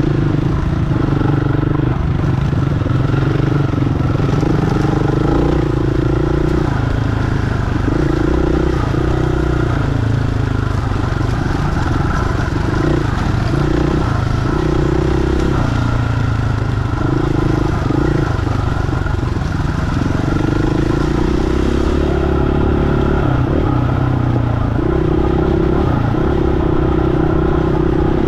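KTM 500 dirt bike's single-cylinder four-stroke engine pulling along a rough trail, its revs rising and falling every second or two as the throttle is opened and rolled off.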